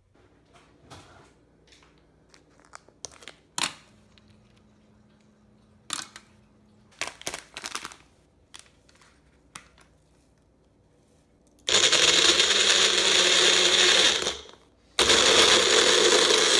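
Magic Bullet blender running twice, each run about three seconds, blending a shake; the motor's pitch rises as it spins up at the start of the first run. Before that, scattered clicks and knocks of the cup and ingredients being handled.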